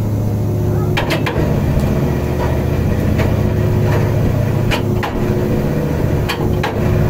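Steady low drone of a tuna purse seiner's engine and hydraulic machinery running as the net is hauled aboard. Sharp knocks and clacks break in several times, starting about a second in.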